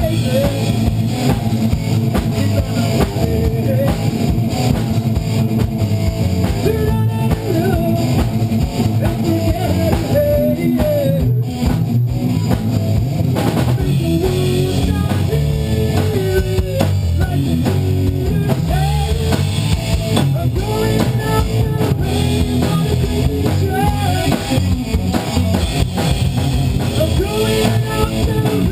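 A rock band playing live in a rehearsal room: a drum kit with a steady bass-drum pulse under electric guitar and bass, and a wavering vocal line sung into a microphone over the top.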